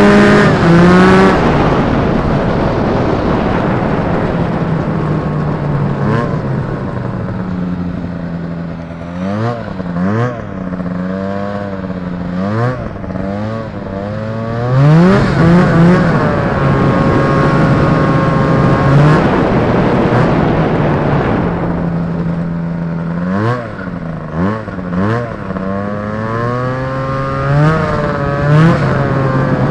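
Indy Trail snowmobile's Rotax 503 two-stroke twin engine running at trail speed. Its pitch drops and climbs again several times as the throttle is eased off and opened, with the steady rush of the track and snow underneath.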